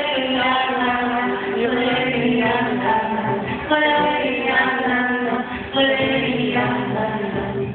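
Live concert music: a woman singing with instrumental accompaniment, in sustained, drawn-out phrases.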